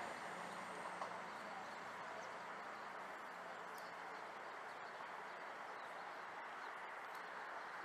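Faint, steady running noise of a CrossCountry Voyager diesel multiple unit moving away down the line, easing off a little in the first second. Faint bird chirps can be heard over it.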